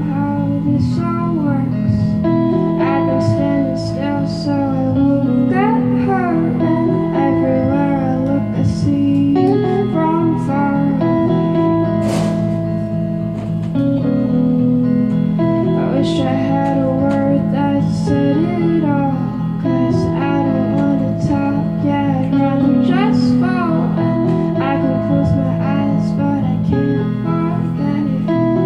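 A song played live on two guitars through small amplifiers, with a woman singing into a microphone.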